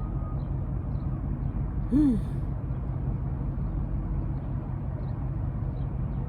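Steady low outdoor rumble, with one short voiced sound from a person about two seconds in, a brief hum or sigh that rises and falls in pitch with a breathy hiss.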